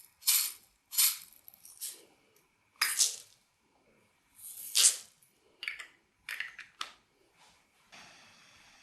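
Slime being squished and pressed by hand: a run of about eight short, sharp squishes at irregular intervals, the loudest about five seconds in. A faint steady hiss comes in near the end.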